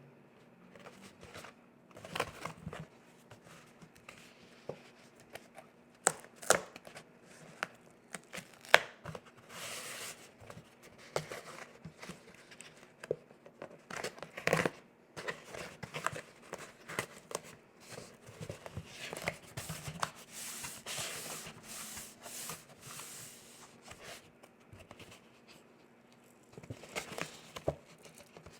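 Cardstock and paper pieces of a gift bag being handled and pressed together: irregular rustling and crinkling with scattered sharp taps and clicks.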